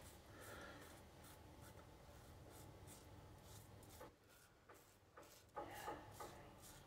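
OneBlade Genesis single-edge safety razor scraping faintly through lathered stubble in a series of short, irregular strokes. A couple of slightly louder handling sounds come near the end.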